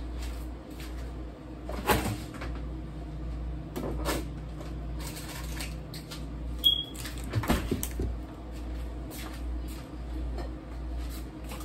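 Kitchen cupboard doors opening and closing with items being handled: scattered knocks and clunks, the loudest about two seconds in and again around seven and a half seconds, over a steady low hum. A short high squeak comes just before the later clunks.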